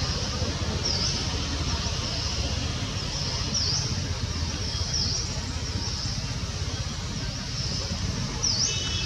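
A bird repeating a short high chirp that dips and then rises in pitch, about once a second, over a steady low rumble.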